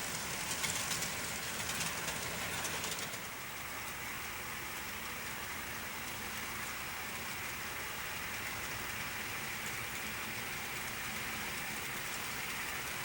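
Model train without an onboard sound system running along the track: quick clicking and rattling of the wheels over the rails for about the first three seconds, then a steady hiss.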